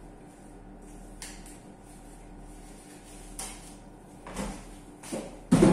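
Kitchen handling sounds at a sink: a few faint knocks over a low steady hum, then one much louder knock near the end.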